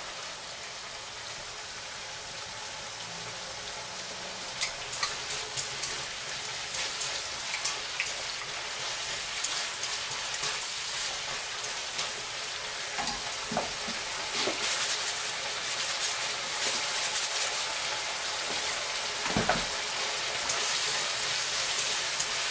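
Beef frying in a hot pan: a steady sizzle that grows louder, with clicks and scrapes of a utensil stirring against the pan and denser spattering crackles in the second half. One low knock about three quarters of the way through.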